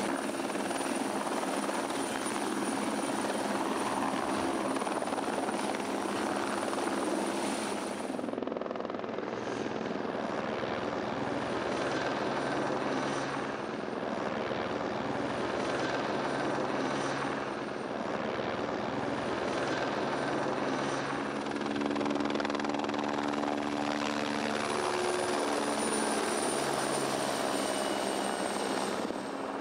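Light turbine helicopters of the Écureuil/Fennec family running close, a steady rotor thrum with a high, thin turbine whine. The sound changes abruptly about eight seconds in, as at a cut, then carries on.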